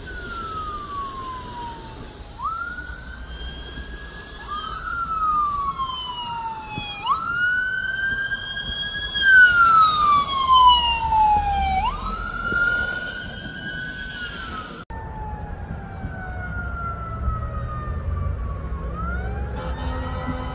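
Police car siren on wail, sweeping slowly up and down, each rise and fall taking about four to five seconds, loudest around the middle as the cruiser passes close. After an abrupt cut about two-thirds through, another siren wails more faintly, with a second siren rising in near the end.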